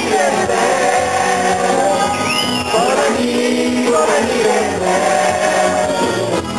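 Live sega band music with group singing, long held sung notes over a steady low accompaniment. A short high whoop rises about two seconds in.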